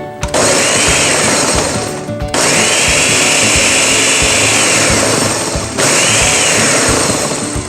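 Countertop blender blending frozen strawberries, banana, yogurt and milk, run in three bursts. The motor cuts out briefly about two seconds in and again about six seconds in, and each restart brings a whine that rises and then falls.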